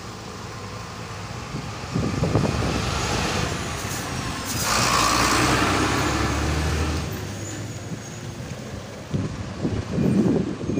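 Street traffic heard from a moving vehicle: engine and road noise, with a louder rushing swell about halfway through, as of a vehicle passing close, and uneven low rumbles near the end.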